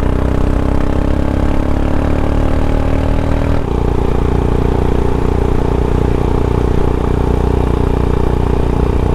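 Royal Enfield Himalayan's single-cylinder engine running on the move. Its note climbs slowly as the bike accelerates, changes abruptly about three and a half seconds in, as at a gear change, and then holds steady.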